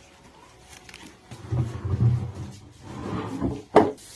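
Wooden handling sounds: heavy low bumping and shifting of wood, then one sharp wooden knock near the end.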